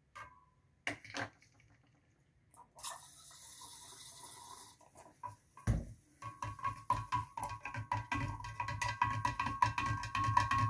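A stirrer clinking and scraping rapidly against the inside of a large glass jar of salt water, several strokes a second, the glass ringing with each stroke. The stirring mixes soda solution into the brine to raise its pH. Before the stirring, a few clicks and a hiss lasting about two seconds.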